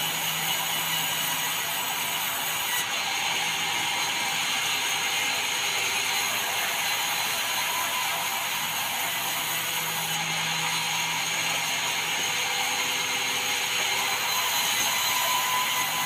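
Vertical band saw ripping a red meranti plank lengthwise: a steady, even run of blade-through-wood noise over the machine's hum.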